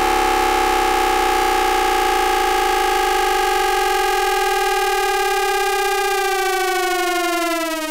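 Hanshin 5500 series VVVF inverter noise picked up by a 'moha radio' receiver on the motor car: a stack of steady electronic tones that glide down in pitch from about six seconds in, the inverter frequency falling as the train slows.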